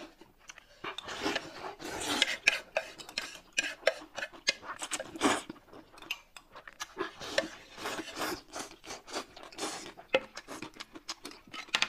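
Close-up eating: chopsticks scraping and clicking on a plate and a spoon tapping in a glass cup, over many short irregular clicks and scrapes, mixed with mouth noises of eating.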